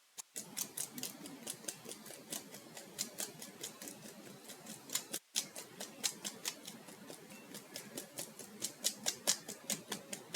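Fingertips tapping quickly and lightly on the cheeks over the masseter (jaw) muscles, as self-massage for teeth grinding: a steady run of soft taps, about four a second.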